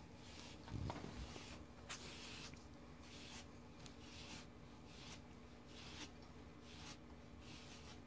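Metal shedding blade raked through a puppy's coat in repeated short, faint scratching strokes, about one or two a second, pulling out the dark undercoat fuzz. A soft thump about a second in.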